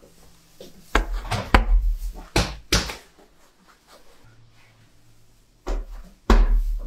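Dull thumps and slaps of large rounds of bread dough being slapped and pressed by hand: about four between one and three seconds in, and two heavier ones near the end.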